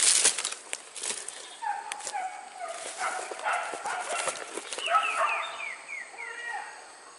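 Hunting dogs on a wild-boar hunt yelping and barking in a rapid run of short calls, with a series of quick falling yelps about five seconds in. Undergrowth rustles loudly at the start.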